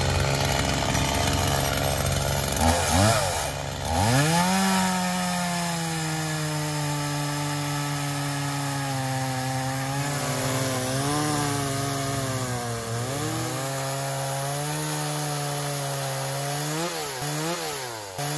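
STIHL MS180 C two-stroke chainsaw idling, then opened to full throttle about four seconds in and cutting through a fresh oak log on a freshly sharpened chain. The engine note sags and wavers under the load of the cut and rises and falls quickly near the end.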